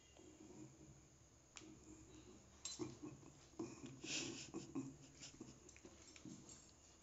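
Faint soft handling noises with a few light clicks: fingers smearing thick masala paste onto a raw fish steak on a ceramic plate, a little louder in the middle, otherwise near silence.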